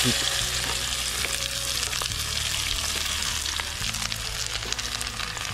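Sliced onions sizzling in hot oil in a wok, just tipped in from a bowl: a steady hiss with fine crackling.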